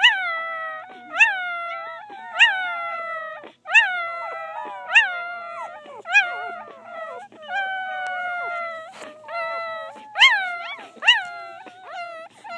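Newborn Bernese mountain dog puppy whimpering and squealing in its sleep. It gives a run of about ten high-pitched cries, roughly one a second, each jumping up sharply and then sliding down into a short held whine.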